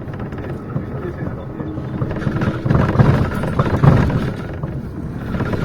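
City bus interior while driving: the engine and road noise make a steady low rumble that swells now and then, with a brief steady whine about two seconds in and some indistinct passenger voices.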